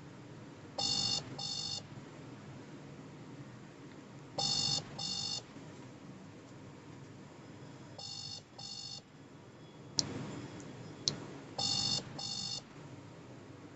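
WhatsApp outgoing-call ringing tone: pairs of short beeps repeating about every three and a half seconds, four pairs in all, while the call goes unanswered. Two sharp clicks sound between the third and fourth pairs.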